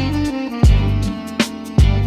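Instrumental dark jazz: sustained melodic notes over low bass notes, with drum hits about half a second in and again near the end.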